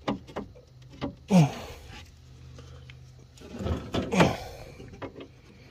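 Scattered metal clicks, knocks and short scrapes of a bolt and hand tools against the window regulator inside a car door, as the bolt is worked toward its hole; a quicker run of knocks comes about four seconds in.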